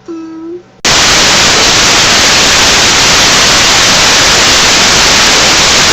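Loud, steady static hiss that switches on abruptly about a second in. It is preceded by a short pitched note.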